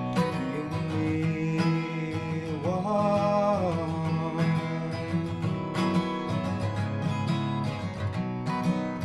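Steel-string acoustic guitar strummed steadily in chords. A held sung note rises and falls briefly about three seconds in.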